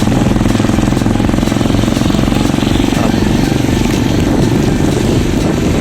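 Loud, steady wind buffeting and tyre noise on the microphone of a camera carried on a moving bicycle, a dense rumble with a fine rapid flutter.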